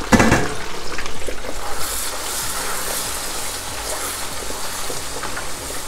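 Potato greens frying in hot oil in a pot, a steady sizzle, with a sharp knock right at the start.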